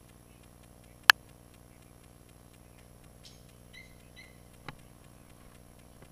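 Faint steady low hum, broken by a loud sharp click about a second in. Two short high electronic beeps follow a little under four seconds in, then a small knock.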